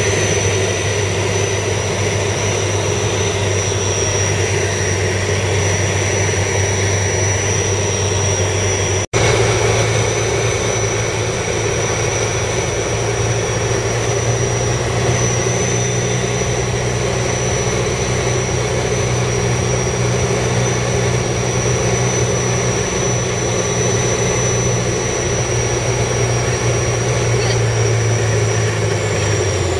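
Single-engine Piper light aircraft's piston engine and propeller droning steadily, heard from inside the cockpit during final approach and touchdown. The sound cuts out for an instant about nine seconds in, and the low hum drops away near the end.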